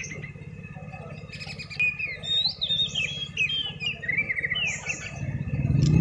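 White-rumped shama singing: a run of varied whistled notes that slide up and down, from about a second and a half in until about five seconds in.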